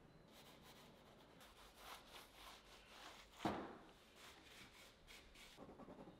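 Faint scratchy strokes of oil paint being worked onto a canvas by brush and hand, with one much louder rub about halfway through.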